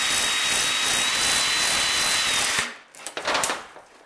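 Electric drill spinning a brake cylinder hone inside a U-joint yoke's bearing bore to clean up the machined surface: a steady whir with a thin high whine that cuts off about two and a half seconds in, followed by a few brief clacks.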